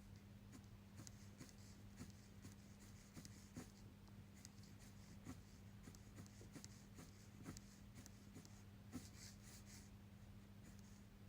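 Faint scratching of a 0.4 mm fineliner pen on paper, drawing short irregular strokes with the odd sharper tick, over a steady low electrical hum.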